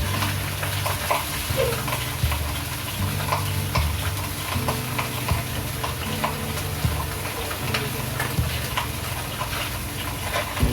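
Food sizzling in a pan while being stirred, with short scrapes and clicks of the utensil against the pan. Under it runs a low steady drone that shifts pitch every second or so.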